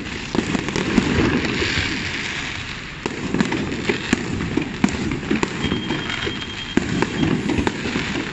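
Aerial fireworks bursting in a dense run: many sharp bangs and crackling pops, one close on another.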